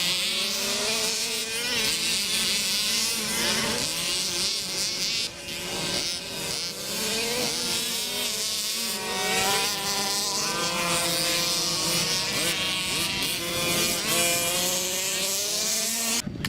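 Several small engines of Baja vehicles revving on a dirt track, their buzzing pitch rising and falling as they speed up and slow down. The sound cuts off suddenly near the end.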